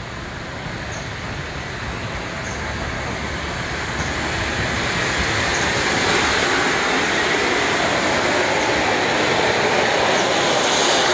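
GWR King class four-cylinder 4-6-0 steam locomotive 6024 King Edward I running tender-first past at close range, its wheels and motion rumbling and growing steadily louder as the engine draws alongside.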